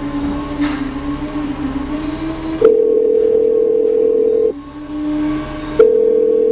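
Phone ringback tone on an outgoing call: a steady ring about two seconds long, then a second ring starting near the end, after a low steady hum.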